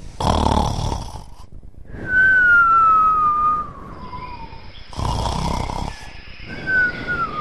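Cartoon snoring sound effect of a sleeping boy, heard twice: a rasping snore on the in-breath, then a whistle that glides down in pitch on the out-breath.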